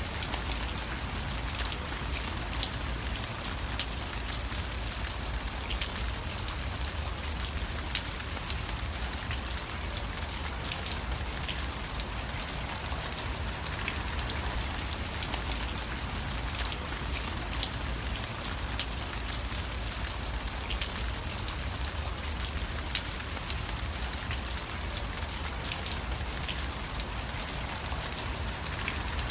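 Steady rain falling, with many scattered sharp drop ticks over a continuous hiss and a low rumble underneath.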